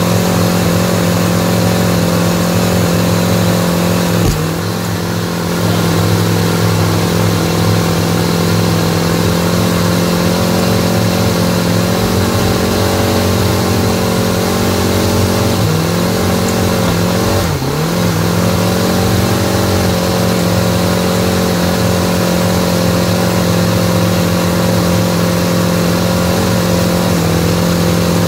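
Mercruiser 350 (5.7 L V8) throttle-body-injected marine engine running steadily at a fast idle, its speed sagging briefly about four seconds in and twice more around sixteen to eighteen seconds in. It is running rough with its fuel pressure sensor unplugged; the spark holds, so a fuel pressure fault is suspected.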